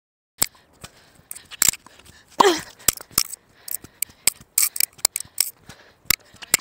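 Tennis balls being struck by rackets and bouncing on a hard court, a run of sharp knocks and clicks that starts about half a second in, with a short squeak about two and a half seconds in.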